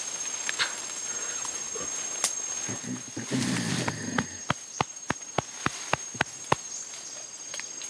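A gorilla's low grunting call, then a run of about nine hollow pops, roughly three a second. A faint steady insect whine sits beneath.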